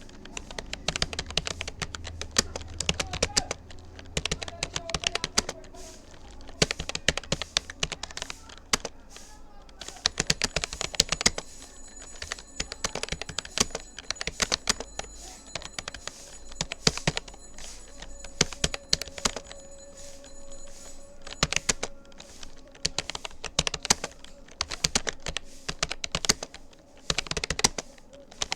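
Rapoo computer keyboard being typed on continuously: a steady, rapid run of key clicks and thuds, touch typing through a timed typing test.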